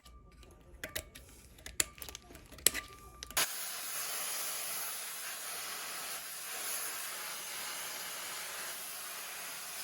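A few sharp clicks, then from about three and a half seconds in a steady, even hiss.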